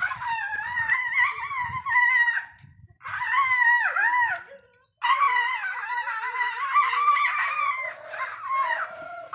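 Asian elephant calf squealing in three long, wavering, high-pitched calls, with short breaks about two and a half and about five seconds in. The calf is crying out in hunger while sugarcane is being peeled for it.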